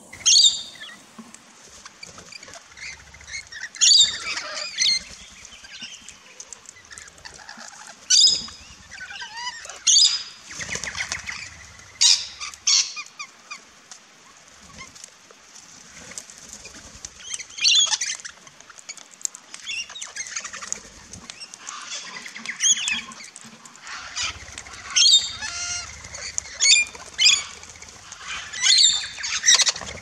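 Rainbow lorikeets and crimson rosellas calling: shrill screeches and chatter in short bursts every second or few, with wing flaps among them.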